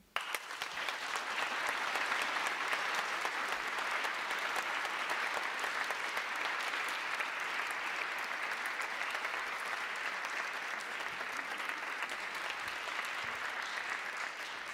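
Audience applauding, breaking out all at once and keeping up steadily.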